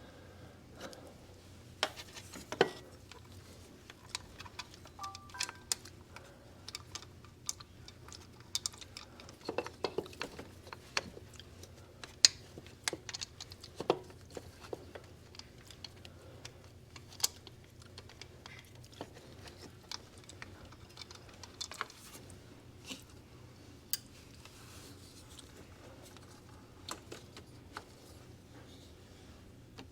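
Irregular clicks and clinks of hand tools and small metal parts being handled during car repair work, over a faint steady low hum.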